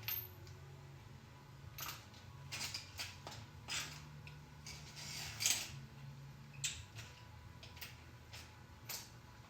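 Irregular metal clicks and scrapes of a wrench and socket working a tight spark plug loose from an LS engine's cylinder head, over a low steady hum.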